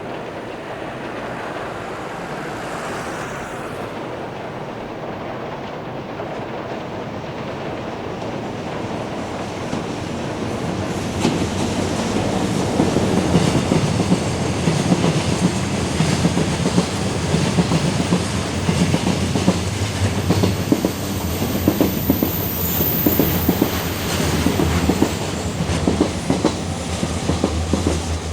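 Electric train running past on the rails: a steady rumble that grows louder about ten seconds in, turning into a rapid clickety-clack of wheels over rail joints.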